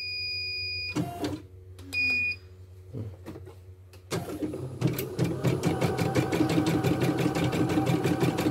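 CNY portable computerized embroidery machine beeping, a long beep and then a shorter one about two seconds in. About four seconds in it starts stitching with a fast, even rhythm of needle strokes over the hum of its motor.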